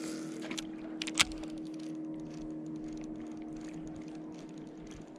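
Steady low hum of a motorboat engine running, with one sharp click a little over a second in and faint rapid ticking later on.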